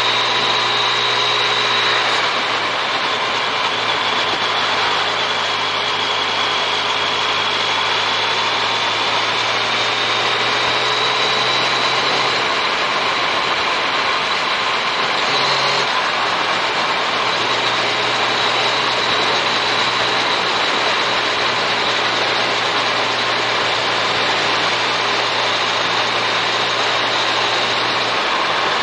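Yamaha MT-09 Tracer's three-cylinder engine running at a steady cruising speed, with a constant rush of wind noise. The engine note shifts a few times as the speed changes.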